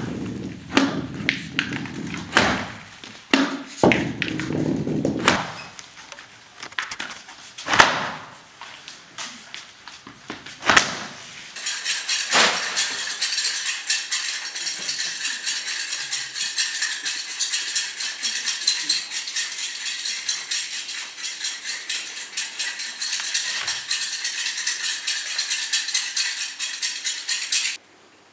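Scattered knocks and thuds of objects and a rolled-up carpet being handled on a wooden stage floor. From about twelve seconds in, a large black plastic sheet rustles and crackles in a dense, even stream that stops abruptly just before the end.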